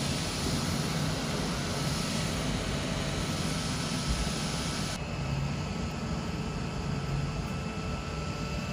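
Small phone cooling fans running with a steady whoosh of air. First comes the Black Shark FunCooler Pro's 6200 RPM fan; after a cut about five seconds in, the RedMagic Ice Dock's 8000 RPM fan follows, slightly quieter with less high hiss.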